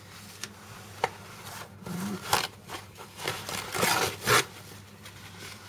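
Hands rubbing and scraping over the cake's surface: a run of short, irregular strokes with one sharp click about a second in, loudest toward the end.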